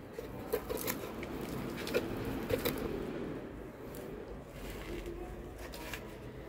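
Gloved hand pressing and patting loose coco peat potting mix down around a plant's stems: soft rustling and crunching of the mix, with a few small clicks in the first three seconds.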